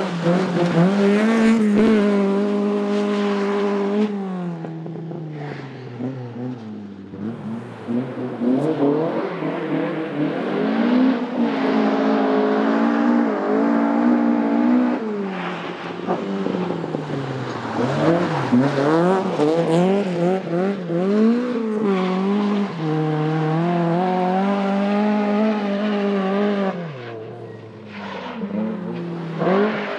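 Toyota Starlet rally car's four-cylinder engine revving hard on a loose stage. Its pitch climbs and drops again and again through gear changes and lifts off the throttle, with brief quieter lulls about a quarter, about three fifths and near the end of the way through.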